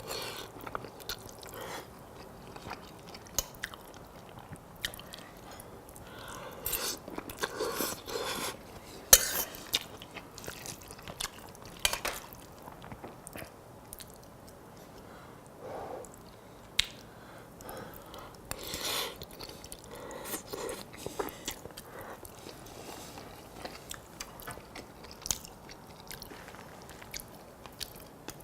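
A person eating spaghetti with meat sauce close to the microphone: irregular chewing and wet mouth sounds, with a few sharp clicks, the loudest about nine seconds in.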